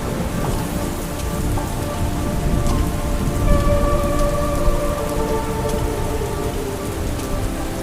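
Heavy monsoon rain falling steadily through the forest, with a low rumble underneath. Soft, sustained music tones come in faintly under the rain after about three seconds.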